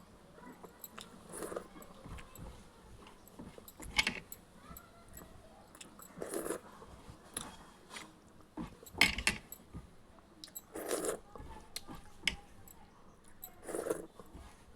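A person chewing egg and rice close to the microphone. A louder bite or mouth sound comes about every two to three seconds, with small clicks and clinks in between.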